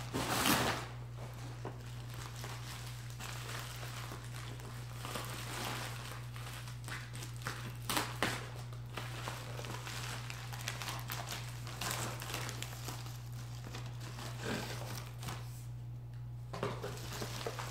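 Shipping package being opened and its wrapping handled: irregular crinkling and rustling with a few sharper crackles, over a steady low hum.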